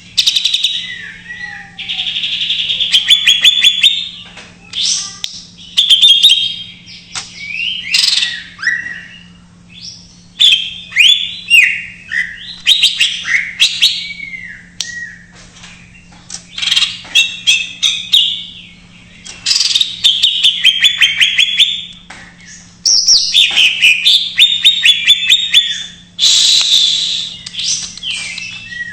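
Green leafbird (cucak ijo) singing a loud, varied song packed with mimicked calls of other songbirds: phrase after phrase of fast trills, sharp chirps and falling whistles with short breaks between them.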